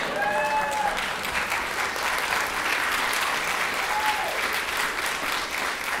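Theatre audience applauding, many hands clapping together, with a few voices calling out over it near the start.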